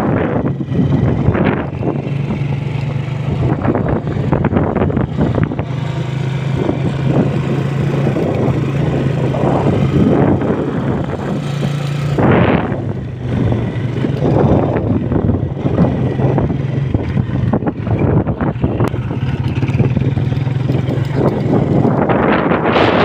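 A motor vehicle's engine running steadily while on the move, a low even hum, with wind buffeting the microphone. The wind gusts are loudest about a second in, around the middle, and near the end.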